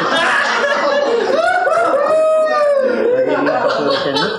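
Men laughing and chuckling with some vocalising, including a drawn-out voice that rises and falls in pitch in the middle.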